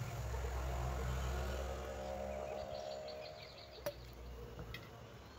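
Low steady hum that eases off after about three seconds, with a faint rapid high pulsing over it; about four seconds in, one sharp clink of a steel strainer set down on a steel pot.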